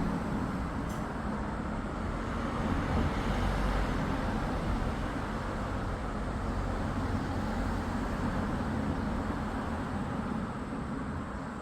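Steady running noise of a car engine idling with its air-conditioning compressor engaged while refrigerant is charged into the system, an even low hum.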